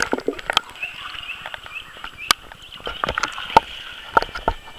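Swimming-pool water sloshing and lapping around a waterproof camera at the waterline, with many irregular sharp clicks and knocks.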